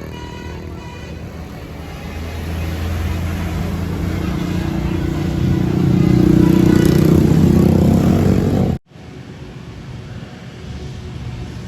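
Heavy bus engine driving past on a climb, its deep drone growing louder over about eight seconds, then cutting off suddenly to quieter traffic noise. The last notes of a multi-tone telolet horn fade out in the first second.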